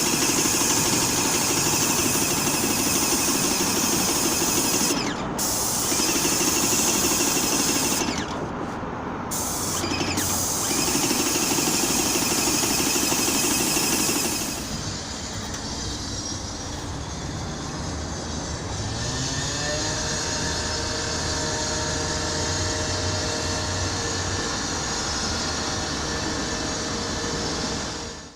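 A power tool running loud with a strong high hiss, stopping briefly twice. About halfway through it gives way to a quieter, steadier machine sound with a thin whine that rises in pitch.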